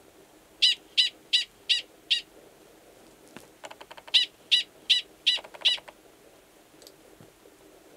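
Gunnison's prairie dog male giving its mating call, which sounds the same as an alarm call: two bouts of five sharp, high-pitched barks, about three a second, with fainter, lower chirps between and under the second bout.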